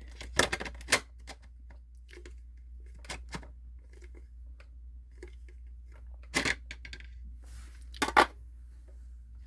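Hard plastic clicks and knocks as a HEPA filter is lined up and fitted back into a Dyson DC18 vacuum's housing, in a few short sharp clusters, the loudest near the end.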